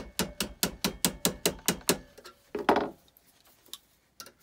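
Small hammer tapping rapidly on a fork tine held in pliers at a vise, about five light metal taps a second, hammering the tine down so it bends without breaking. The tapping stops about two seconds in, followed by a single heavier knock with a short ring.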